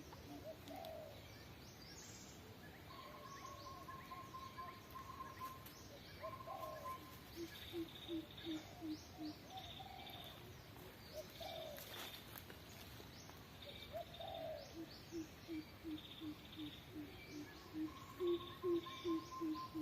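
Several birds calling over a steady rural background. Runs of short low notes repeat about three times a second, and higher trills and short chirps come and go.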